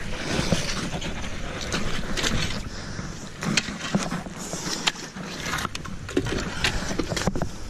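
Shovel digging in wet tidal mud and gravel, with wellington boots stepping in it: irregular scrapes, clicks and squelches over a low rumble of wind on the microphone.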